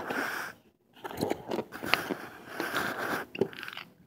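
Hands handling the packaging of compact fluorescent bulbs: bursts of crinkling and scraping with a few sharp clicks, broken by a brief pause near the start.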